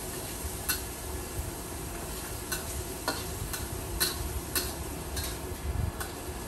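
Metal spatula clinking and scraping against a wok as noodles are stir-fried, with irregular sharp strikes about once or twice a second over a steady sizzle.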